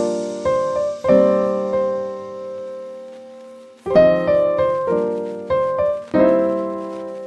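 Background piano music: chords struck and left to ring and fade, with a fresh chord every second or few.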